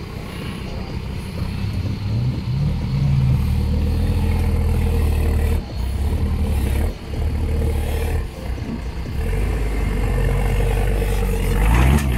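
Engine of a modified GAZ-69 off-road trial special working under load as it crawls through a deep hole, revving up about two seconds in, dropping briefly several times mid-way as the throttle is lifted, and revving hard again near the end.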